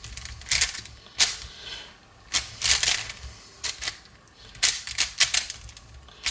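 QiYi Mofangge WuQue 4x4 plastic speed cube being turned by hand: quick clusters of clicking, clacking layer turns separated by short pauses.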